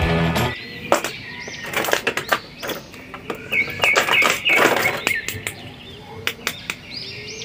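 Music stops about half a second in. Then clear plastic bags and a blister tray crinkle and click as small plastic action figures are handled, in many short irregular clicks. Birds chirp faintly in the background.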